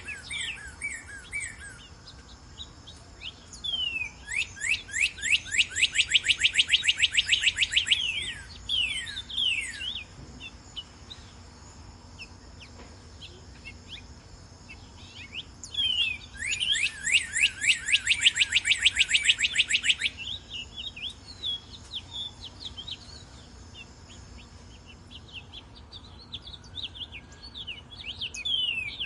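Northern cardinal singing: two long songs of fast, repeated down-slurred whistles, one starting about four seconds in and one about sixteen seconds in, with scattered single slurred notes between.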